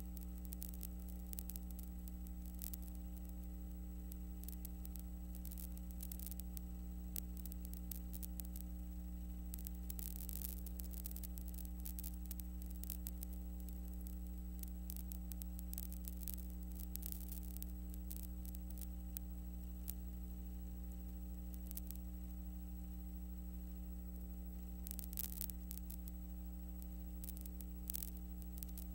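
Steady electrical mains hum with several even overtones, under a scatter of faint crackles and clicks: background noise of a film transfer that carries no recorded sound.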